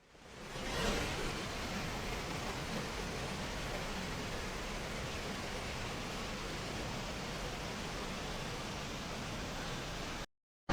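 Waterfall rushing, a steady even roar of falling water that fades in about a second in.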